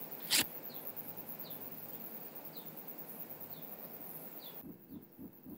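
Steady outdoor background hiss with a faint short chirp repeating about once a second, and one sharp click about half a second in. The background cuts off suddenly near the end.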